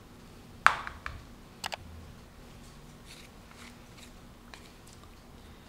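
A wire whisk clicking against a mixing bowl and a wooden spoon as sticky dough is scraped off it. There is one sharp click about half a second in, a lighter one just after, a quick double click near two seconds, then a few faint ticks.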